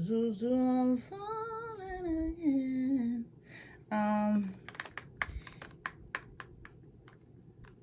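A woman's voice singing or humming a short sing-song phrase with long held notes, gliding and stepping down in pitch, for about four and a half seconds. Then a quick run of light clicks and taps from handling a product container.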